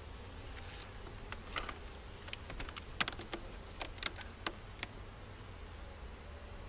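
A quick, irregular run of sharp clicks and cracks, about a dozen over four seconds, as a queen excluder is prised up off a beehive box and lifted away.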